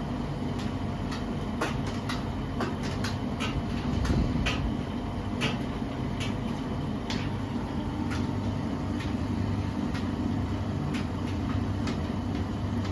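Beko washing machine running, a steady low rumble with irregular short clicks and knocks through it.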